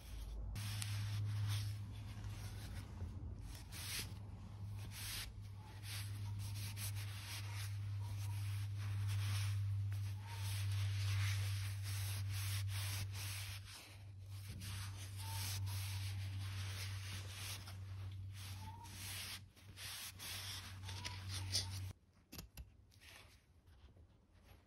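A cloth rubbed back and forth along a wooden axe handle, working in wood oil, in repeated scratchy strokes over a steady low hum. Both stop abruptly about 22 seconds in, leaving only faint handling sounds.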